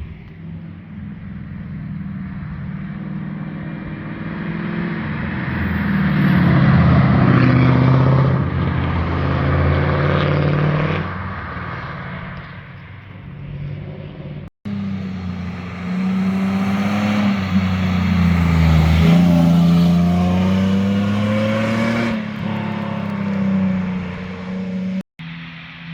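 Cars driving past on a winding road, engine and exhaust note rising and falling as they pass. One pass builds to a loud peak about six to eleven seconds in; after a brief dropout another car comes through, loudest about sixteen to twenty-two seconds in.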